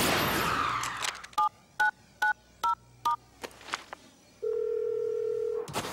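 A cartoon portal's crackling energy whoosh fades out. Then a phone keypad beeps five times in quick succession, each beep two tones at once, as a number is dialled. Near the end a steady tone plays on the line for about a second.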